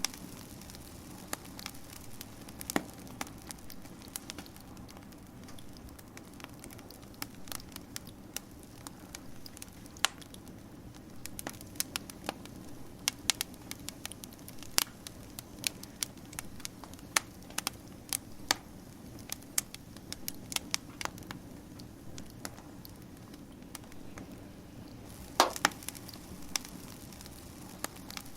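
Wood fire crackling: a steady soft hiss under irregular sharp pops and snaps, with a short cluster of louder pops near the end.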